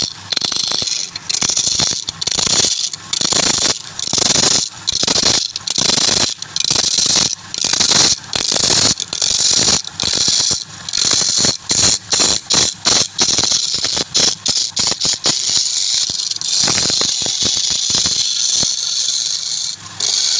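Turning tool cutting into wood spinning on a lathe: a loud rasping hiss that comes and goes in short strokes, becoming steadier in the last few seconds.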